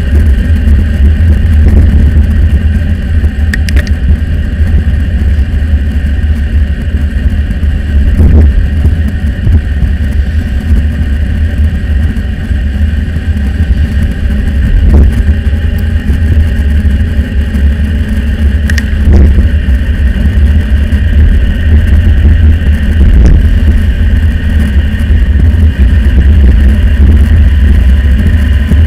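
Wind buffeting the microphone of a camera on a moving bicycle: a loud, steady low rumble, with a few faint knocks from bumps in the ride.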